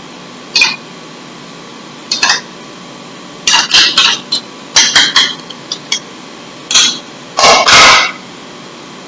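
Kitchen containers and utensils handled during seasoning: short rattles and clinks in about six separate bursts, the longest and loudest near the end.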